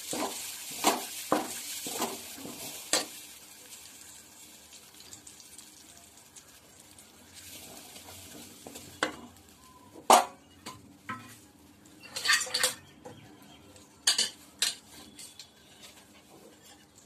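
Steel spoon stirring a thick mashed red banana paste cooking in ghee in a pan, scraping and knocking against the pan in irregular strokes, with a faint sizzle that fades in the first few seconds.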